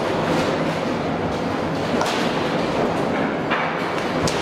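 Seismic shake table running a simulated triaxial earthquake at 1G acceleration: a steady, dense rumble with a few sharp thuds and knocks as the full-size three-storey wooden prefabricated building shakes on it.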